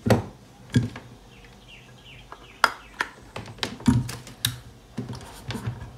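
Soldering station cables and plug being handled and pushed into place: a scattered series of sharp clicks and knocks, about eight in all. A few short, faint, high chirps come in a quick run early on.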